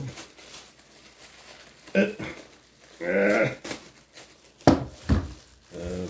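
Plastic bag crinkling as a vacuum floor nozzle is handled in it, with two sharp knocks close together near the end. Short wordless vocal sounds come about two and three seconds in.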